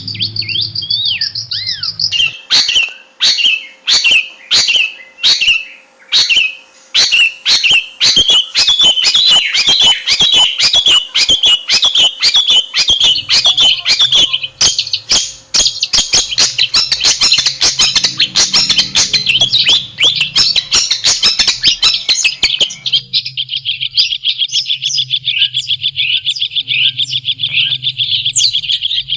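Long-tailed shrike (cendet) singing loudly: a run of sharp, separate calls, then a fast, dense chattering warble. About three-quarters of the way through it changes to a continuous rapid trill.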